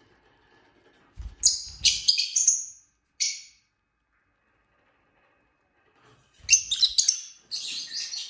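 Lovebirds chirping: two bursts of sharp, high-pitched chirps, the first a little after a second in and the second from about six and a half seconds.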